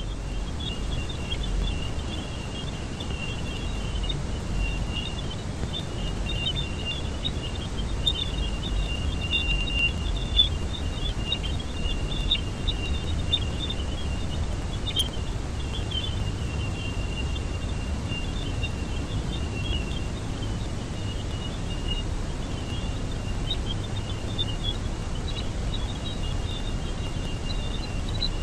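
Space audio presented as the sound of the planet Jupiter: a steady low rumbling noise with a continuous band of high, fluttering chirps and crackles above it.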